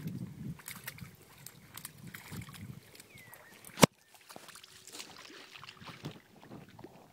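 A dog pawing and splashing in a shallow muddy puddle: irregular sloshing of water and mud with small splashes and clicks. One sharp knock stands out just before four seconds in.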